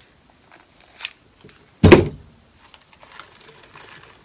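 A single loud thump on the craft table about two seconds in, with a short ring after it. Around it come faint small clicks and soft rustling as the wreath's artificial greenery is handled.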